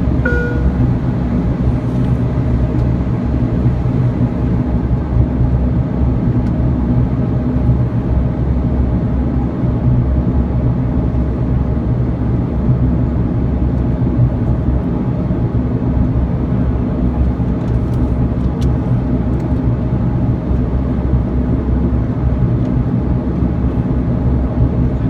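Dash 8-Q400's Pratt & Whitney PW150A turboprop engine and propeller running steadily, heard from inside the cabin as a loud, even drone with a low hum.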